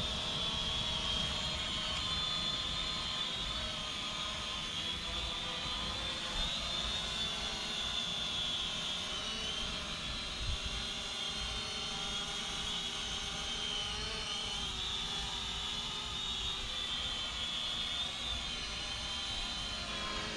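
Syma X500 GPS quadcopter drone in flight: its propellers give a steady high-pitched whine that wavers slightly in pitch.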